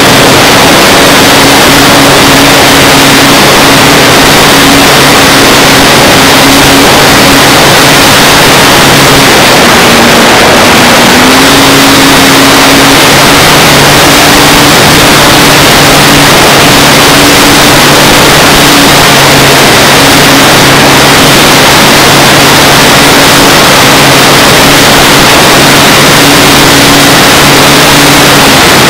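RC P-51 Mustang model in flight, heard from on board: loud wind rush on the microphone over the steady drone of its motor and propeller. The drone dips briefly about ten seconds in, then settles at a slightly higher pitch.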